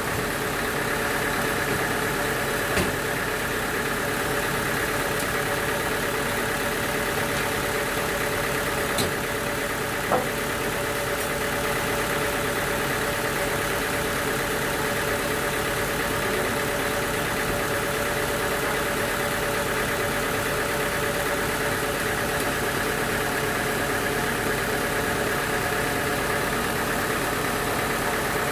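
A sawmill's engine running steadily at an even speed with no change in load, with a few faint knocks.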